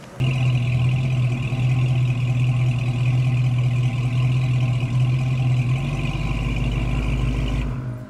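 Ford Torino's engine idling steadily, heard at its exhaust as a deep, even drone with no revving. It cuts in suddenly just after the start and drops away near the end.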